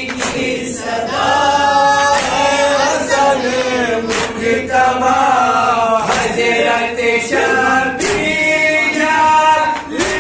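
Group of men chanting an Urdu noha (Shia lament) in unison through microphones, the lead voices carrying a slow sung melody. A sharp slap cuts through about every two seconds, from hands striking chests in matam.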